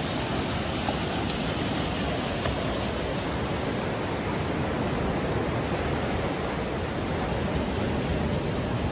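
Steady, even rushing of sea surf breaking on the shore.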